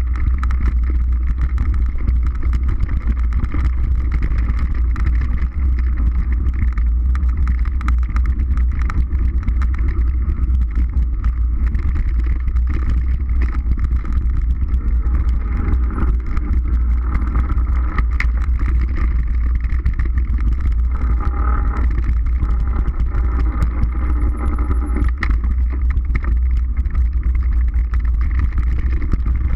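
Mountain bike ride on a dirt forest trail: a steady low rumble of wind buffeting the microphone and tyres on the ground, with frequent small clicks and knocks from the bike over bumps.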